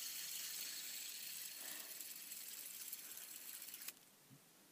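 Fidget spinner spinning on its bearing, giving a steady, high whirring hiss that slowly fades. It stops abruptly about four seconds in, when the spinner is pressed against a neck.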